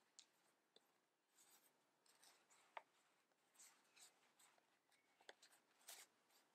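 Near silence, with a few faint, brief handling sounds as a leather notebook is slid out of a cloth dust bag.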